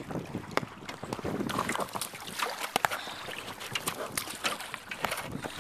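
Jumbled knocks, clicks and splashing as a pickerel is handled and let go over the side of a boat, with the camera jostled about.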